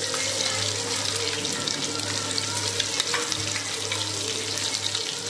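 Fish curry simmering in an aluminium pot on a gas stove: a steady hiss with small crackling bubbles, and a low hum underneath.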